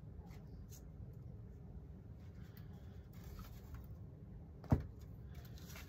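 Quiet hand work at a model-building bench: faint scratching and rustling as parts are handled, over a low steady hum, with one sharp tap or click about three-quarters of the way through.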